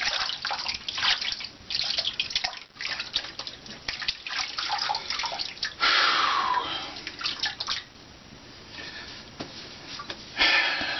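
Water running from a bathroom tap into a sink, with uneven splashing, and louder splashes about six seconds in and near the end.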